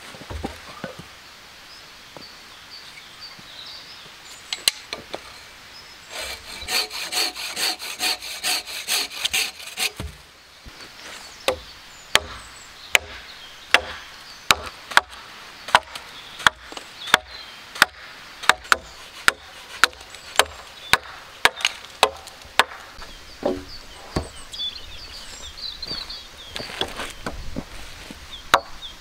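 An axe chopping wood in a steady run of sharp blows, about one and a half a second, for about ten seconds, cutting log ends to points. Before that come a few seconds of quick rasping strokes on wood, and a few separate knocks follow near the end.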